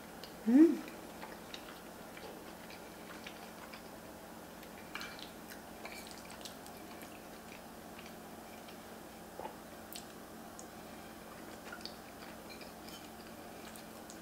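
A woman makes a short rising hum of enjoyment with her mouth full of macaroni and cheese, then chews quietly. Scattered small clicks run through the chewing.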